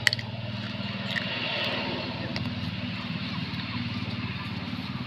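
An engine running steadily with a low hum, a couple of sharp clicks at the very start.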